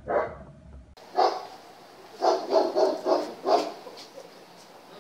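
German shepherd barking: a single bark, another about a second later, then a run of five quick barks.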